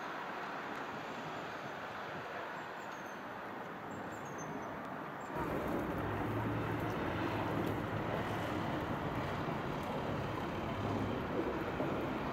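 Steady outdoor town background noise: a constant hum of distant traffic. About five seconds in it steps up to a louder steady low drone.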